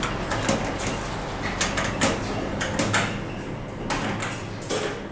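A string of sharp clicks and knocks as the stainless push buttons of an Otis Gen2 elevator car's panel are pressed, over a steady low hum.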